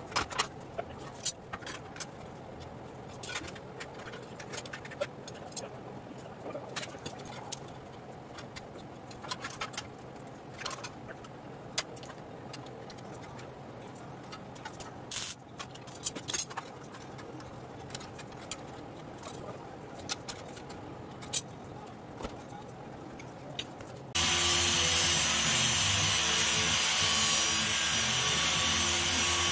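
Scattered clicks and clanks of steel clamps and frame-rail pieces being handled. About 24 seconds in, an angle grinder with a flap disc starts suddenly, grinding on a steel frame rail, and runs loud and steady from then on.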